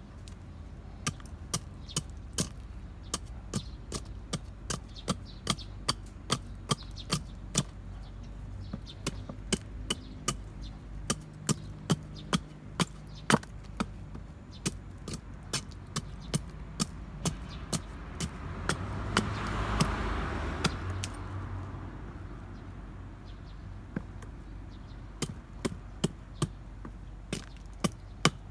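Hatchet chopping into a stick of wood held upright on a log chopping block, shaping it: a long run of sharp, evenly paced chops, about two a second. In the middle the chops thin out while a rushing noise swells and fades.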